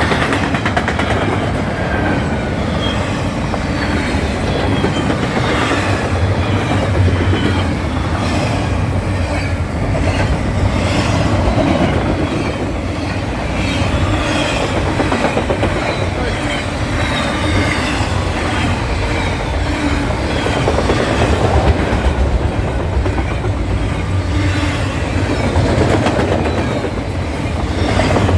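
A steady, loud rumble of something in motion, with repeated clattering strokes through it.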